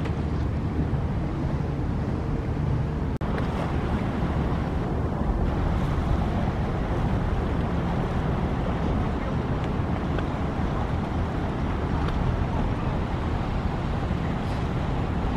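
A motorboat's outboard engine running at low speed, under wind buffeting the microphone and water noise. There is a brief sudden dropout about three seconds in.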